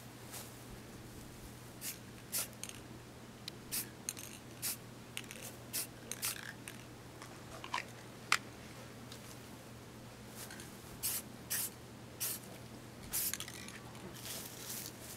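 Short bursts of aerosol spray paint hissing from a can: about twenty quick squirts with gaps between them, a few slightly longer than the rest.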